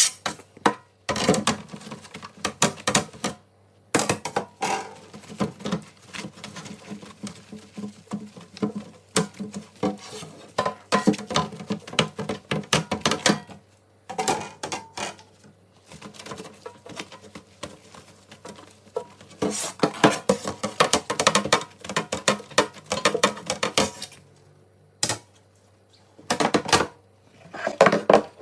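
Dishes and containers clattering as they are handled and set down during a fridge clean: irregular runs of knocks, taps and clinks broken by short pauses.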